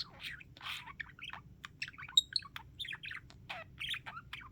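A budgie chattering: a quick, continuous run of short chirps, warbles and scratchy squawks.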